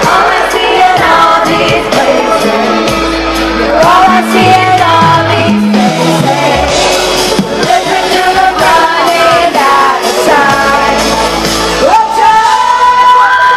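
Live pop song sung over a loud band or backing track in a large hall, with crowd shouts mixed in. About twelve seconds in, the singer holds one long, steady high note.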